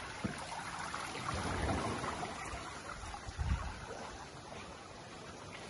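Gentle lagoon surf washing on the sand, with wind buffeting the microphone in low rumbles about a second and a half in and again near the middle.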